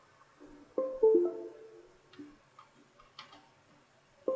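Background music: a short phrase of plucked-string notes, heard about a second in and again near the end, with a few faint clicks between.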